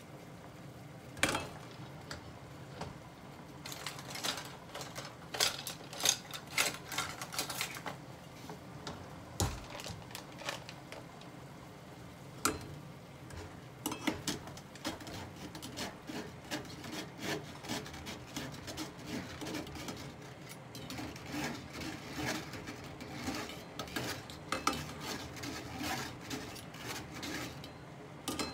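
A metal fork and a wire-mesh strainer scraping and clinking against a stainless steel stockpot in irregular bursts, as pieces of stewed pork cartilage are fished out of the liquid.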